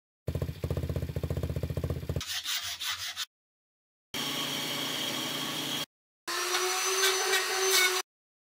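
Short, abruptly cut bursts of woodworking tool noise separated by silent gaps: a rapid buzzing rattle for about two seconds, then two stretches of steady whirring noise.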